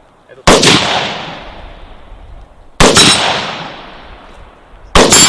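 Three single gunshots from a firearm, fired about two seconds apart, each a sharp crack followed by a long fading echo.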